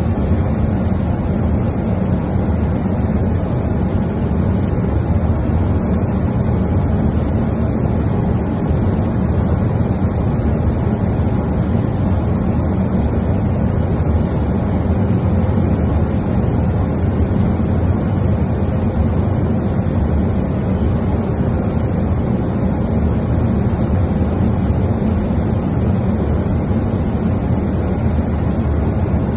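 Steady rumble and rush of airflow and engine noise inside an Airbus A220 flight deck on approach, even and unbroken, heaviest in the low range, with a faint steady hum above it.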